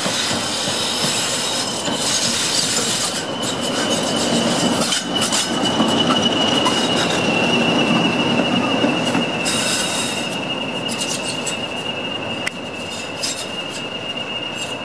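BR Class 40 diesel-electric locomotive D335 moving slowly past, its English Electric 16-cylinder engine running with a steady high whistle above the rumble. It grows louder as it comes closest near the middle, then eases off.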